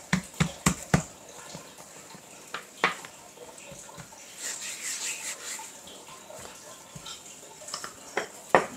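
Kitchen handling noises: a quick run of sharp taps and knocks at the start, another knock about three seconds in, a brief hiss around the middle, and two more knocks near the end.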